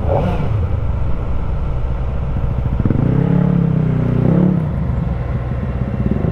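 Kawasaki Ninja ZX-4RR's 399 cc inline-four engine running on the move, with the revs climbing about three seconds in and easing back down a second and a half later.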